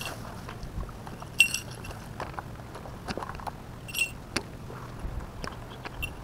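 Scuffs, scrapes and knocks of a person climbing over a concrete wall, with two sharp metallic clinks that ring briefly, about a second and a half in and again about four seconds in.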